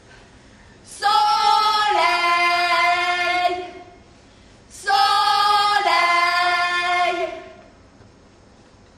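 Women's voices singing two long sung calls, each a held note that steps down to a lower one, the second following about a second after the first ends.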